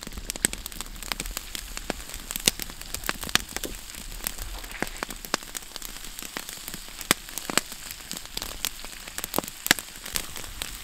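Food frying in a pan: a steady sizzle with many irregular sharp pops and crackles.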